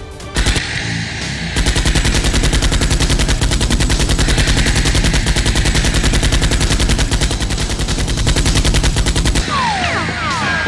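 Machine-gun sound effect: one long, rapid burst of evenly spaced shots that starts about a second and a half in and stops shortly before the end, over background music.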